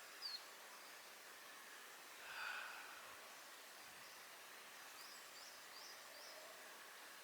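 Near silence: faint woodland ambience, with a soft breath-like rush about two and a half seconds in and a few faint, short high chirps, one near the start and a small run of them about five seconds in.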